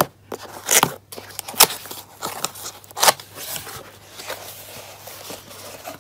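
Cardboard packaging being opened by hand: flaps and a folded insert scraping and rustling, with a few sharp crackles, the loudest near a second in and again about three seconds in.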